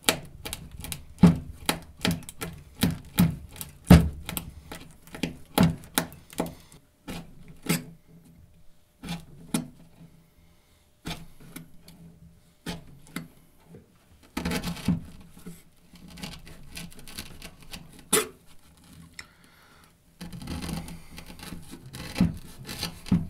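A folding knife hacked repeatedly against material on a hard surface: quick sharp knocks, two or three a second for the first several seconds, then sparser strikes and stretches of rubbing and sawing.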